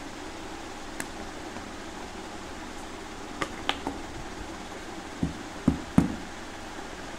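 Handling of a small plastic toy container: a few light plastic clicks as its cap comes off, then three dull knocks of the container against the floor, the last the loudest, over a steady low hiss.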